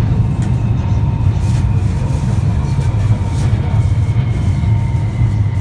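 Fuzhou Metro Line 1 subway train running, heard from inside the car: a loud, steady rumble of the car on the rails, with a faint steady whine above it.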